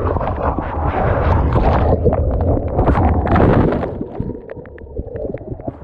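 Wind and surf buffeting a GoPro's microphone on the water, loud at first, then dropping off about four seconds in, with a few small clicks near the end.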